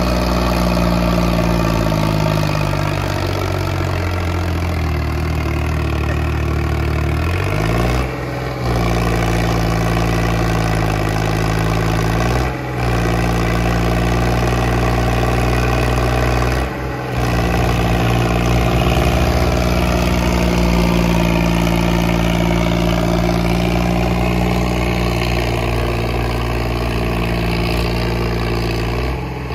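Diesel tractor engines labouring under heavy load in a tug-of-war, with the Sonalika DI 35 and New Holland 3630 chained together and pulling against each other. The engine note sags in pitch for a few seconds, then climbs back, and the sound breaks off briefly a few times.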